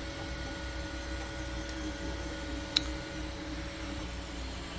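Bambu Lab P1P 3D printer humming steadily, a few steady tones over a low hum, with one sharp click a little before the middle.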